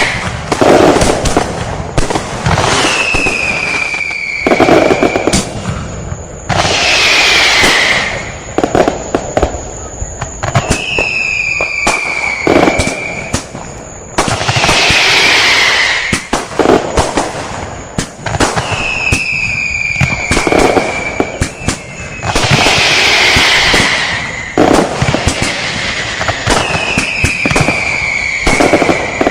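Fireworks and firecrackers going off: dense crackling pops and loud bursts, with high whistles that fall in pitch. The pattern of bursts and whistles comes round about every four seconds.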